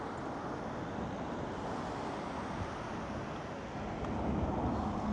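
Steady rush of road traffic from the surrounding streets, swelling briefly about four seconds in as a vehicle goes by.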